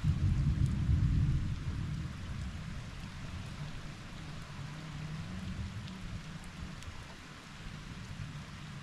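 Steady rainfall with a roll of thunder: a deep rumble breaks in suddenly at the start, is loudest for about a second and a half, then rumbles on more quietly under the rain.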